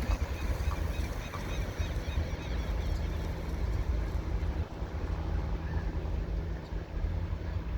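Diesel locomotive engine running with a steady low hum and rumble, with gusty wind on the microphone.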